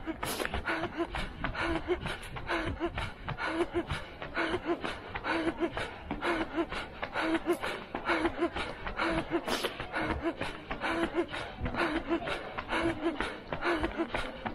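A runner's hard, rhythmic breathing at full race effort, gasping in and out in time with his stride, over the steady patter of running footsteps on stone paving.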